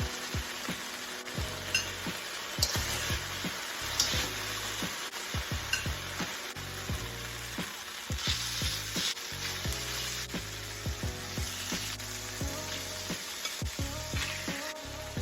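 Thin slices of marinated rib eye steak frying in hot oil in a wok: a steady sizzle that swells louder several times as the meat is stirred.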